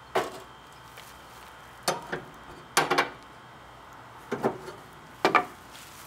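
Five sharp knocks and clanks, a second or so apart, each ringing briefly: a section of the metal grill grate being moved and a chunk of hickory wood being put onto the coals below.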